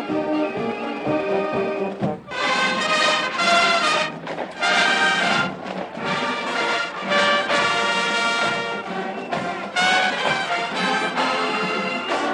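Marching band brass playing. About two seconds in, the music breaks off and a louder, brighter brass passage takes over.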